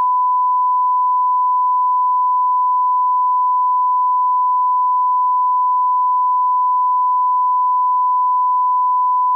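1 kHz television test tone, the reference tone that goes with colour bars: one steady, loud beep of a single pitch, held without a break.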